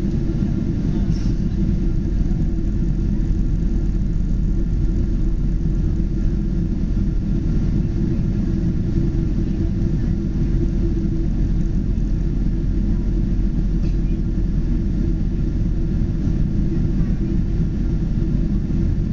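Boeing 777 jet engines running: a steady low rumble that holds constant with no rise or fall.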